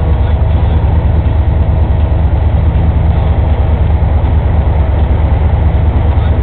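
Vehicle engine idling steadily, a loud, even low hum.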